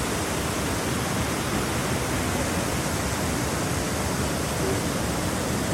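Shiraito Falls, a wide, low waterfall where spring water pours over the rock face in many thin strands like a lace curtain, rushing with a steady, even noise.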